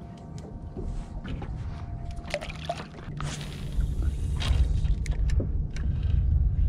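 Wind rumbling on a head-mounted action camera's microphone over water sloshing around a small boat, with scattered clicks and rustles of handling fishing gear.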